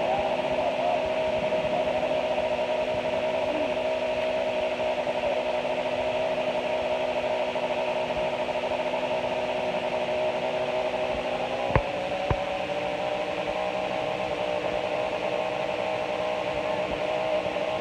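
An engine running steadily at idle, with two sharp knocks about half a second apart roughly two-thirds of the way through.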